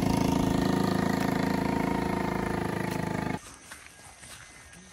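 Small motorcycle engine running close by and slowly fading as it pulls away, cut off abruptly about three and a half seconds in. Faint footsteps on a dirt trail follow.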